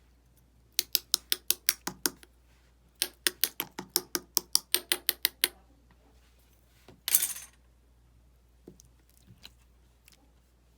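Slime being pressed and poked, making rapid sharp clicking pops in two runs of about six or seven a second, then a short burst of noise a little past halfway and a few faint clicks near the end.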